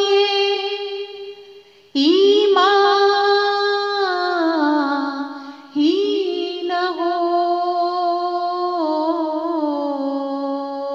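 A woman's solo voice singing a naat, holding long drawn-out notes that step down in pitch. A phrase fades out in the first two seconds, and new phrases begin about two and about six seconds in.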